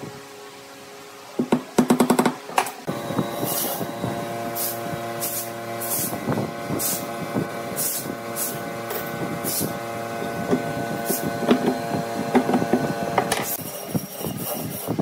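A claw hammer striking nails into a pine board in a quick run of sharp blows about two seconds in, and another run near the end.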